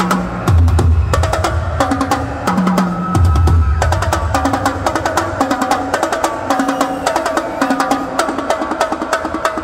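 Fast live drumming with sticks on a row of small drums, dense rolls and strokes over a repeating melodic backing. Deep bass notes sound under it and drop out about four seconds in.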